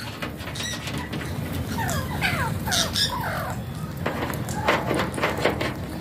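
A feeding flock of parakeets squawking: overlapping harsh calls that bend up and down, bunched about two seconds in and again near the end.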